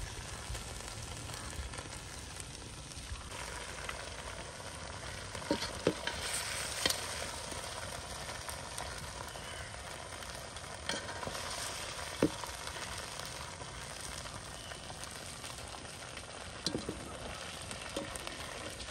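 Pieces of green-marinated chicken deep-frying in hot coconut oil, sizzling steadily while they are half cooked. A few short sharp clinks are heard as a wire-mesh skimmer scoops the pieces out of the pot.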